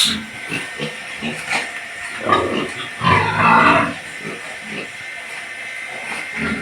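Piglets grunting and squealing: a sharp squeal right at the start, short grunts throughout, and a longer, louder squeal about three seconds in.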